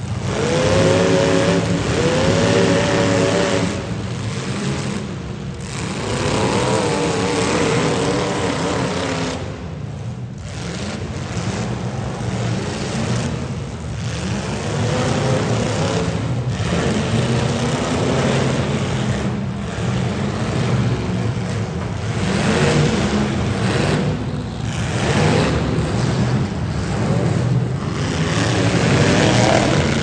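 Several demolition derby cars' engines revving hard, their pitch rising and falling again and again, with now and then a bang as the cars hit one another.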